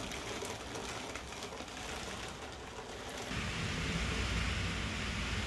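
Heavy rain falling outside, with many small drop ticks; about three seconds in it grows heavier into a denser, louder hiss with a low rumble underneath.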